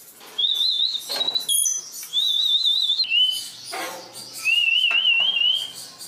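African grey parrot whistling: three high, warbling whistle phrases that wobble up and down in pitch, with short pauses between them.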